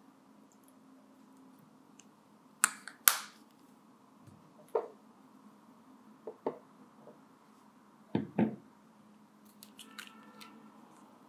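A scattering of sharp clicks and light knocks, about eight in all, from small containers and utensils being handled while D-panthenol is measured into a glass beaker. The loudest pair comes about three seconds in, and a double knock follows about eight seconds in, over a faint steady low hum.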